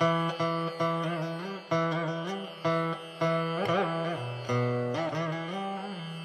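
Background music: a plucked string melody with sliding, bending notes struck about every half second over a steady low drone.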